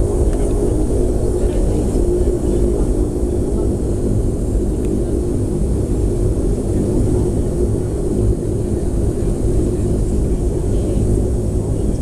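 Aircraft engines running steadily: a loud, even drone with a steady hum of several tones underneath.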